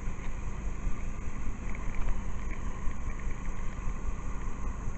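Wind buffeting the phone's microphone: a steady low rumble that swells and dips.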